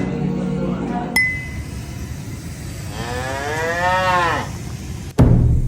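A single moo from a head of farm cattle, rising and then falling in pitch over about a second and a half. Music fades out about a second in, and a sudden loud deep boom hits near the end.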